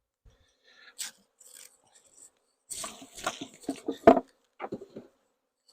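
Wooden beehive box being pried loose, scraping and rubbing wood on wood, with clicks and a sharp knock about four seconds in; the box is stuck fast, sealed down where it hasn't been lifted in a long time.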